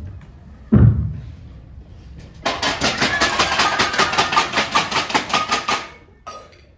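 Two heavy thumps, then a rapid clattering rattle of about eight strokes a second for about three and a half seconds, with a short burst after it: the noise of a staged offstage fight.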